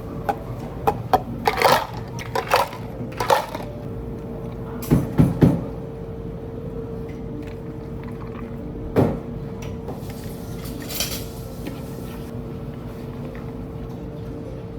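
Dishes and utensils clinking and knocking during cafe drink preparation, with the loudest clatter about five seconds in and another knock near nine seconds, over a steady machine hum.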